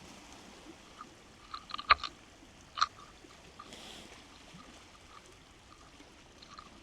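Faint scattered ticking over a quiet hiss, with a cluster of sharp clicks about two seconds in and one more sharp click about a second later.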